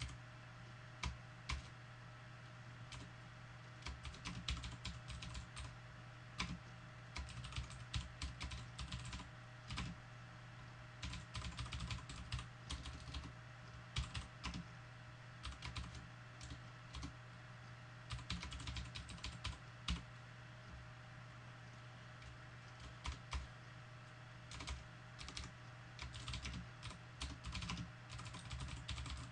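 Typing on a computer keyboard: runs of quick keystrokes broken by short pauses, over a steady low hum.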